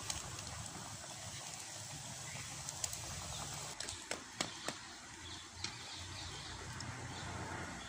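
Small open wood cooking fire being fed with dry sticks: a steady hiss broken by a handful of sharp cracks and clicks in the middle, with faint bird chirps.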